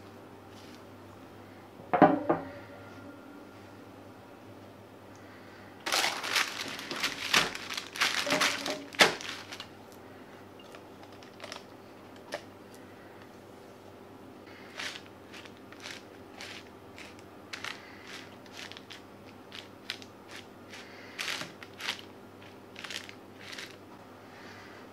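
Sticky oat granola scraped out of a glass bowl with a silicone spatula onto a paper-lined baking tray and spread out. A sharp knock comes about two seconds in, then a few seconds of loud crackly rustling and scraping, then lighter scattered scrapes and taps as the oats are pushed flat over the paper.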